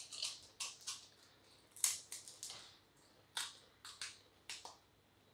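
Crisp, hollow fried puri shells for pani puri crackling as they are broken open, a string of about a dozen short, sharp cracks.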